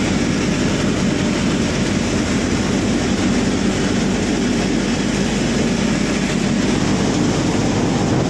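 Shri Ganesh threshing machine running at full work, a loud steady mechanical drone with a low hum that does not let up.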